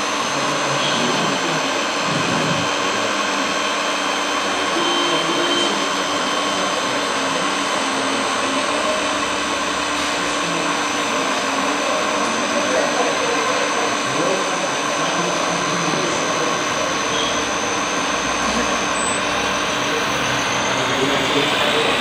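Steady whirring of a 1:14.5-scale RC MAN 8x8 tipper truck's electric motors and hydraulics as its raised dump bed lowers and the truck drives off, with faint voices behind.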